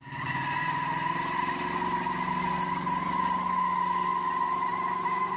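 A V8 car doing a burnout. The engine is held at high revs and climbs slowly, under the steady squeal of the spinning rear tyres.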